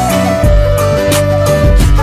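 Background music with a steady beat, bass notes and a held melody line that steps in pitch.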